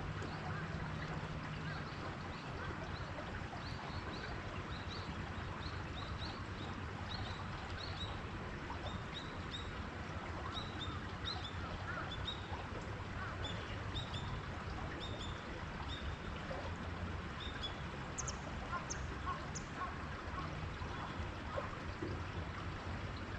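Small waterfall pouring into a pond, a steady rush of water. Over it, birds give short high chirps again and again from about 3 to 17 seconds in, with a few higher calls near the end.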